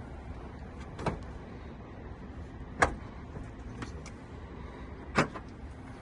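Three short, sharp knocks about a second, three seconds and five seconds in, over a steady low hum.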